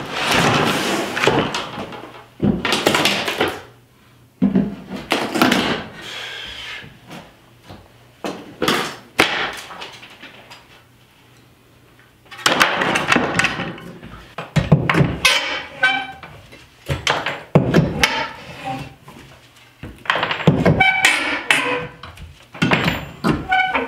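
Old plank subfloor being pried up with a hooked pry bar and thrown onto a pile: irregular cracks, knocks and clattering boards, with short squeals as nails pull out of the wood.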